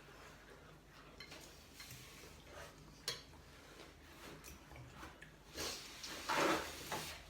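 Spoons and bowls clinking lightly as people eat noodle soup at the table, with scattered faint clicks, a sharper click about three seconds in, and a louder noisy sound near the end.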